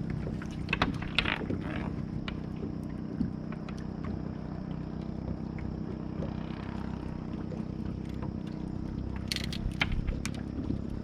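Small fishing boat's engine running steadily at low revs, with a few sharp knocks and clicks about a second in and again near the end.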